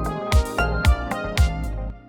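Samsung Galaxy S25 stock ringtone playing: a plucked keyboard-like melody over a kick-drum beat about twice a second. It ends near the end, its last notes dying away.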